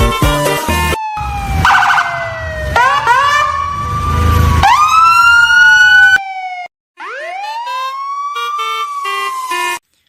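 Siren-like wailing effects over background music with a beat: slow falling and rising pitch glides with short stacked notes. The beat stops about six seconds in, then after a brief gap one more rise-and-fall glide plays and cuts off abruptly.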